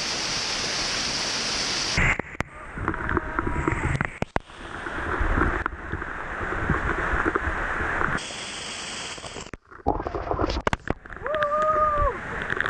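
Rushing and splashing waterfall water, broken into several short clips by abrupt cuts. A person's brief pitched call comes near the end.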